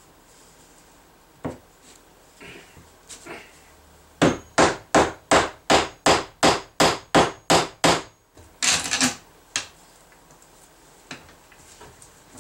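Wooden mallet knocking a turned pine column down into its three-legged foot base: a fast, even run of about eleven sharp knocks, roughly three a second, followed by a short scraping rattle.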